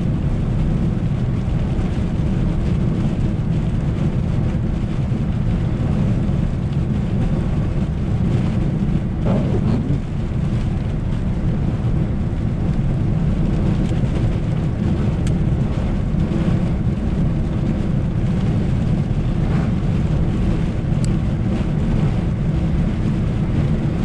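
Steady low rumble of a car's engine and tyres on a snow-covered road, heard from inside the moving car's cabin. A brief rising tone sounds about ten seconds in.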